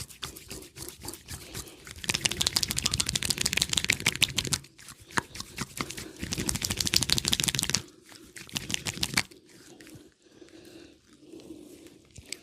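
Rapid crackling and tapping from a barber's hands-on massage, close to the microphone. It comes in two loud spells of about three seconds each, then goes on in fainter strokes.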